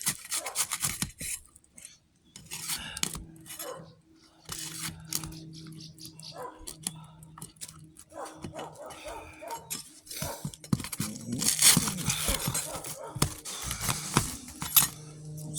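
Brittle asphalt roof shingles being pried up and torn loose by hand: irregular scraping, crackling and tearing, busiest near the end. A steady low hum runs under it from about two and a half seconds in.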